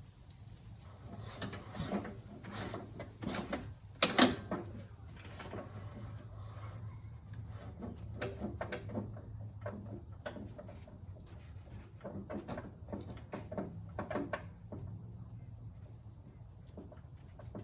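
Irregular metal clunks and knocks from a Black Max mower with a Honda engine being handled with its spark plug disconnected, while the source of its clanking is tracked down. One louder, sharp knock about four seconds in, over a steady low hum.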